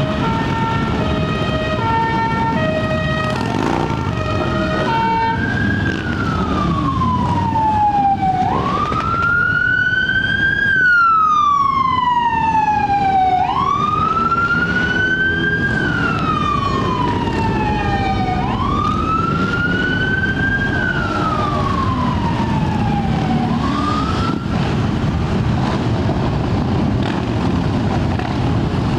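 Motorcycle engines running as a column of bikes rides past. Over them a siren first sounds a quick series of stepped tones. It then wails, rising fast and falling slowly about every five seconds, four times, and breaks off on a fifth rise near the end.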